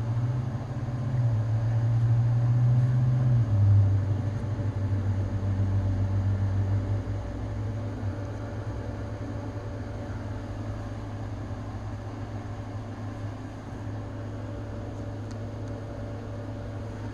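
Steady low mechanical hum over an even hiss, with a faint higher steady tone. The hum drops slightly in pitch about three and a half seconds in and grows quieter after about seven seconds.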